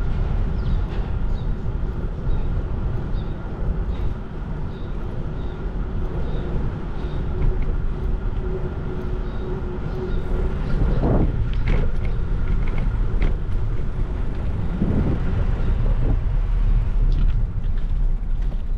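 City street traffic: cars and buses running and passing, with a few louder passes about eleven and fifteen seconds in, over a steady low rumble.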